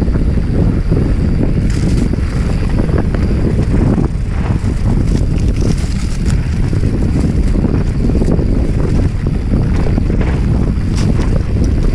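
Heavy wind rumbling on the microphone, with scattered knocks and rattles throughout.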